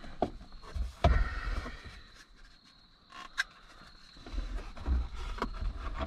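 Scattered knocks and clicks with rubbing as an aftermarket switch panel mount is pushed and worked into a truck's headliner by hand. The loudest knock comes about a second in.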